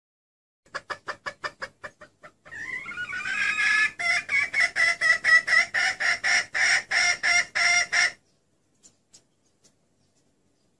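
Female red junglefowl (hen) calling, the call used to lure wild males. It opens with a quick run of clucks, then a drawn-out call about two and a half seconds in that runs into a loud series of rhythmic clucks, about four a second. The calling stops abruptly about eight seconds in.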